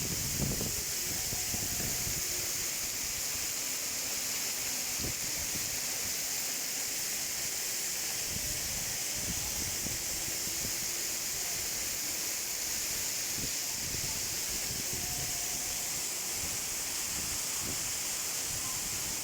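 Waterfall rushing: a steady hiss of falling water that does not change.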